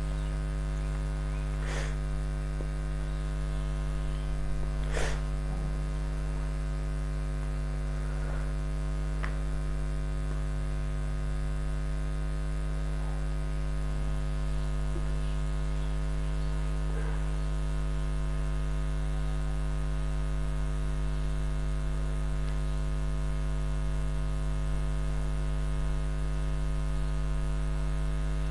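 Steady electrical mains hum with its stack of overtones, with a few faint clicks or knocks, the clearest about two and five seconds in.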